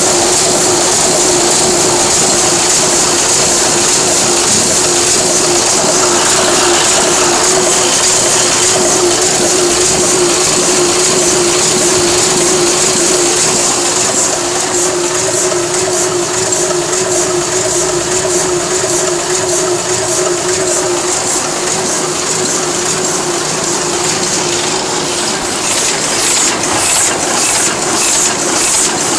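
Heidelberg GTO 46x32 single-colour offset printing press running at speed: a steady mechanical clatter over a constant hum. Near the end a rhythmic clicking stands out more sharply.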